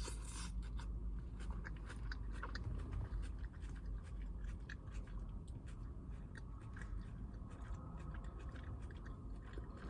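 Close-up chewing of a mouthful of salad with crisp lettuce and onion, a fast run of small wet crunches and clicks, over a low steady hum.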